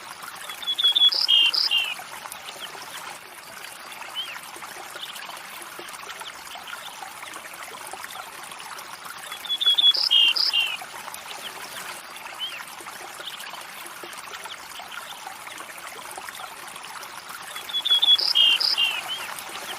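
A river or stream running steadily, with a bird singing a short chirping phrase three times, about a second in, near the middle and near the end.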